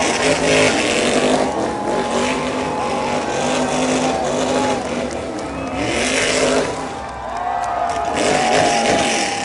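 A Stock Car Brasil race car's V8 engine is revved up and down over and over as the car spins donuts, with its rear tyres screeching as they spin and smoke.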